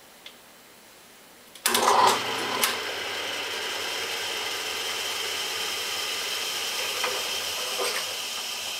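Rockwell milling machine switched on with a sudden clunk a little under two seconds in, then its motor and spindle running steadily with a high whine, driving the tap for power tapping.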